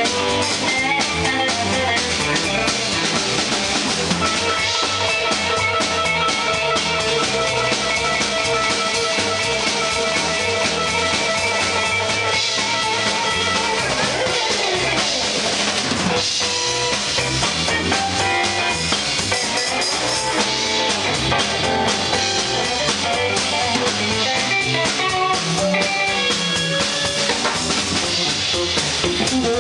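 Live jump-blues band playing an instrumental passage: a Stratocaster-style electric guitar leads over a swinging drum kit and keyboard, with a steady beat.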